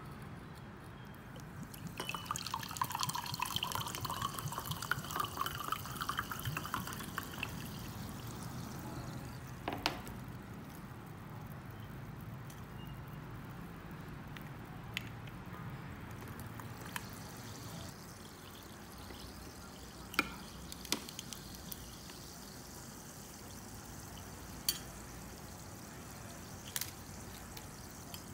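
Water poured from a bottle into a glass for about five seconds, starting about two seconds in. It then settles into a faint fizz broken by a few short, sharp clicks and plops as candied grapes are dropped into the glass.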